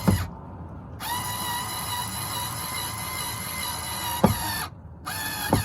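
Cordless drill/driver motor whining steadily for about four seconds, then a short trigger burst near the end, with sharp clicks in between, as it snugs the speaker mounting screws.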